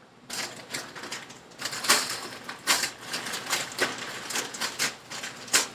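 Irregular clicking, knocking and rustling of things being handled and set down, a quick uneven string of sharp clicks with the loudest near two seconds in and near the end.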